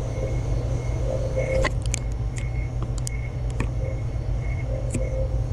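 White-noise sound machine running as a steady low rumble, with a few faint clicks and taps in the middle of it.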